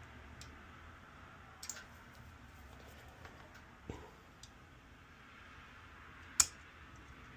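A few light clicks and taps from handling a circuit board and test probes while a component is checked with a meter. Small clicks come about 1.7 and 4 seconds in, and a single sharper, louder click about 6.4 seconds in.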